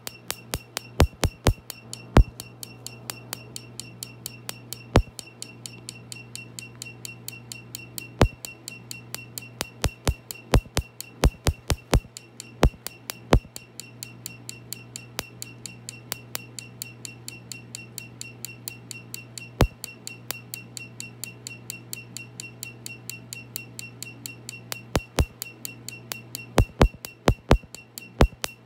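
Tattoo-removal laser firing in a rapid, even train of sharp snaps, several a second, each with a high beep, some snaps much louder than the rest. A steady low hum runs underneath.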